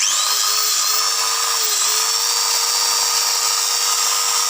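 Electric hand grinder switched on, reaching full speed almost at once and running at a steady high pitch. Its armature makes the rough 'snoring' (ngorok) noise that marks a faulty armature.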